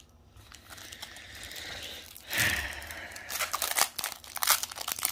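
Foil wrapper of a Pokémon TCG booster pack being handled and torn open by hand, with sharp crinkling that grows denser over the last couple of seconds.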